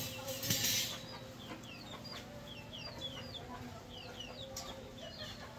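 Chickens calling nearby in short, high, falling chirps, about two a second, throughout. About half a second in, a brief louder scraping clatter as a wire-mesh fence panel is handled on the tiled floor.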